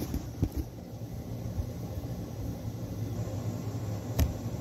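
Steady low hum with a few soft knocks of the phone being handled just after the start, and one sharp click about four seconds in.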